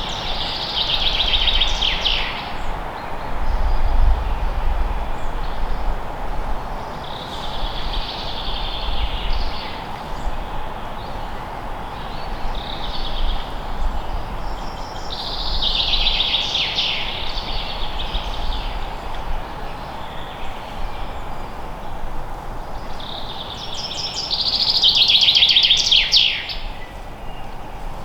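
A songbird singing short repeated phrases, one every several seconds, each ending in a fast trill that drops in pitch. Under it runs a steady background noise with a low rumble.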